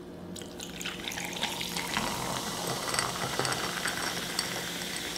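A carbonated drink poured from a bottle into a tall glass: a steady stream of liquid splashing into the glass that builds over the first second, with the fizz crackling in many tiny pops.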